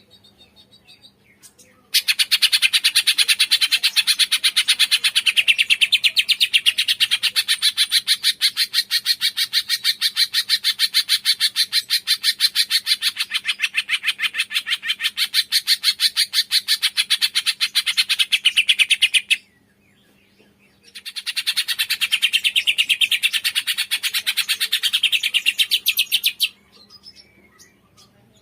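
Cungkok songbird giving a long, fast, evenly pulsed chattering trill. It breaks off briefly and then starts again for a shorter run.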